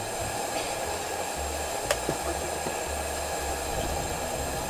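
Steady hiss of pressurized Coleman 290A liquid-fuel lanterns burning, with a couple of faint clicks about two seconds in.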